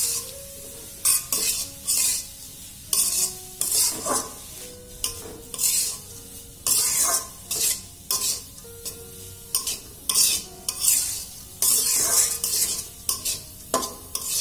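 Metal spatula scraping and stirring grated carrots frying in melted butter in a metal kadai: irregular scrapes roughly once a second over a steady sizzle. The carrots are being fried so that their water cooks off.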